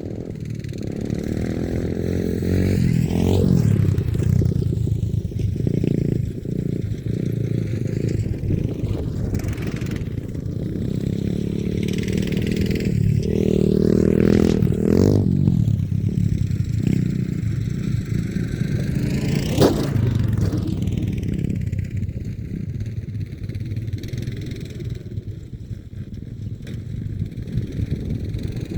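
Small off-road vehicle engine revving up and falling back again and again as it rides around, getting louder as it comes close several times.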